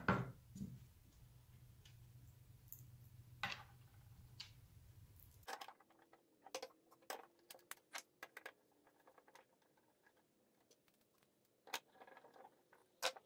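Faint scattered clicks and taps of small screws, washers and hard plastic parts being handled while assembling a MicroJig GRR-Ripper push block, with a few more clicks near the end as a screwdriver turns a screw into the plastic body.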